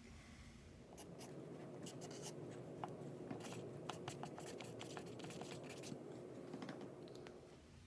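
Faint scraping with many small, irregular clicks from a lock pick working the pins inside a pin-tumbler lock.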